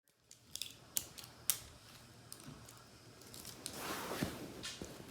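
Plastic toy packaging being handled: a few sharp clicks in the first second and a half, then a louder rustle a little before four seconds in.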